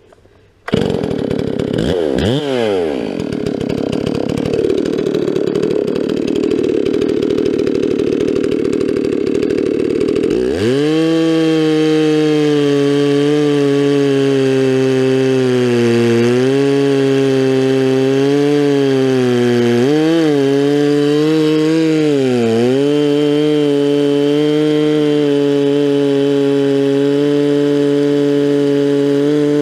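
Stihl 046 Magnum two-stroke chainsaw with a 24-inch bar and milling chain, ripping a slab off a log on a chainsaw mill. It comes in suddenly about a second in, and from about ten seconds in holds a steady high pitch at full throttle that dips briefly a few times under load.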